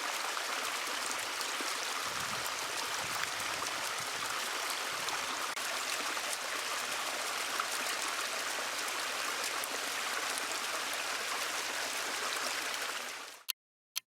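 Backyard pondless waterfall, water splashing steadily over stones, fading out near the end.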